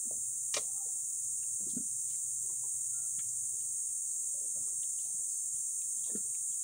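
Chickens clucking now and then over a steady high-pitched insect drone, with a few light clicks.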